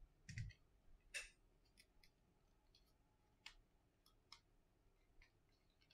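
Faint, sparse clicks and taps of a smartphone and its back cover being handled and set down on a rubber repair mat: a soft knock about a third of a second in, a sharper click about a second in, then a few faint ticks.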